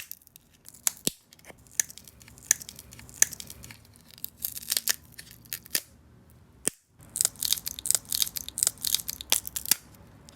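Cured UV-resin keycaps being trimmed of excess resin: many sharp snips and scratchy scraping in quick clusters, with a short break about two-thirds through.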